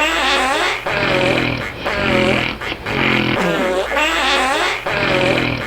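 Snoring in a quick, even rhythm of about one breath a second. Each breath alternates a buzzing rattle with a wavering, flapping flutter that sounds like a fart.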